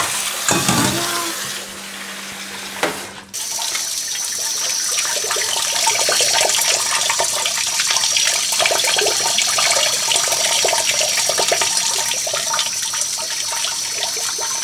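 Household water running with a steady rush, starting suddenly about three seconds in, after a quieter stretch with a few clicks and a low hum.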